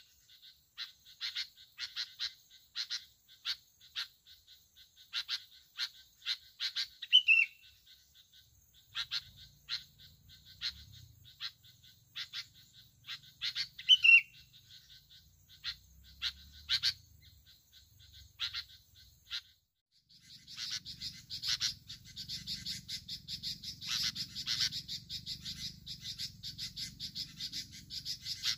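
Bulbul calling in a steady series of short, sharp chip notes, with a few quick falling whistled notes among them. About two-thirds of the way through, the calls become a dense, continuous run of rapid chirping.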